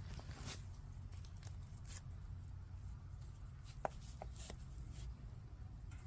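Hens foraging: scattered small pecking and scratching clicks with a couple of brief, soft clucks about four seconds in, over a low steady rumble.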